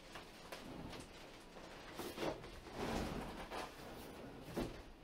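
Faint rustling and a few soft knocks of someone handling a large, heavy cardboard shipping box on a plywood floor.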